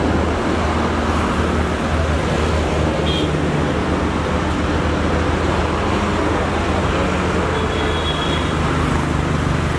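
Steady road traffic noise with a continuous low engine hum under it.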